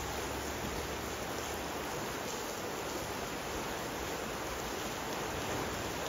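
Steady, even hiss of rushing water, unchanging throughout.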